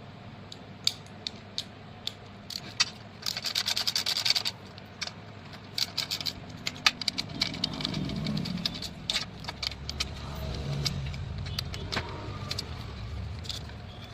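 Small metal parts and tools clinking and clicking during hand work on a small generator's recoil starter. There is a quick run of rapid ticking about three seconds in, and a low rumble under the clicks in the middle.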